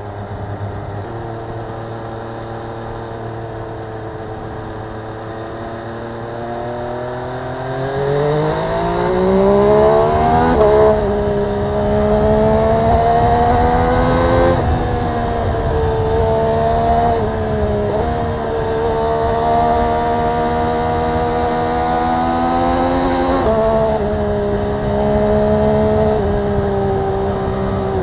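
MV Agusta Brutale 800RR's three-cylinder engine heard onboard while riding, with no wind noise. It runs at a steady low note, then from about six seconds in the throttle opens and the note climbs for several seconds, getting louder. After that it holds a higher note with several brief dips in pitch.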